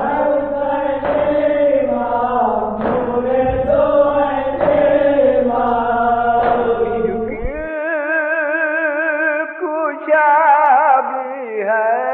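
Nauha, a Shia Urdu lament, chanted by voices with a sharp beat about every two seconds over a steady low hum. About eight seconds in, the recording changes abruptly and a single voice holds long notes with a wide vibrato.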